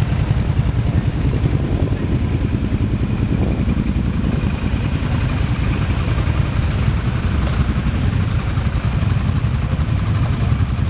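Several quad bikes (ATVs) idling together with a steady, low engine rumble.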